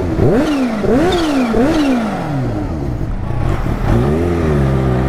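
Kawasaki Ninja H2's supercharged inline-four engine revved in three quick blips, each rising and then falling away, with a high supercharger whistle dropping after each blip. From about four seconds in it settles to a steadier, lower note as the bike moves off.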